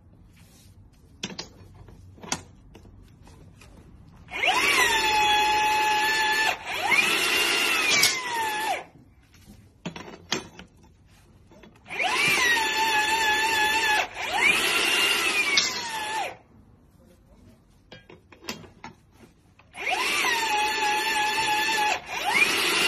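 Battery-powered portable rebar bender motor running through three bends of a ribbed steel bar. Each time it whines up to speed, holds a steady pitch, breaks briefly, then runs again with a rise and fall in pitch. In the gaps between bends there are scattered sharp clinks of the steel bar being handled.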